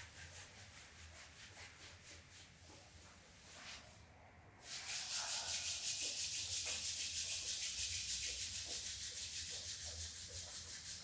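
Hands rubbing rhythmically in quick strokes, a dry hiss of skin and cloth: first softer, the hands rubbing the lower back over the kidneys through a shirt, then after a short pause about four seconds in, the palms rubbed briskly together, louder and faster. It is qigong self-massage to warm the kidney area and the hands.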